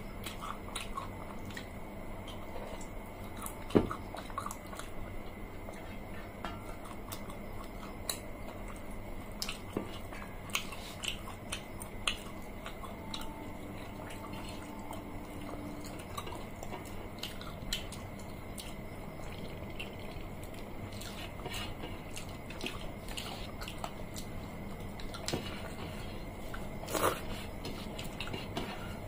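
Eating sounds: fingers mixing watery fermented rice (poita bhat) on metal plates, with chewing and small wet clicks and squishes scattered through, and a sharper click about four seconds in.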